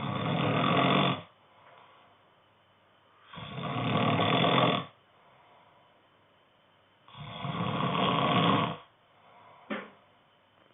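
A man snoring in his sleep: three long, loud snores spaced about three and a half seconds apart, with quieter breathing between them and a brief, shorter sound near the end.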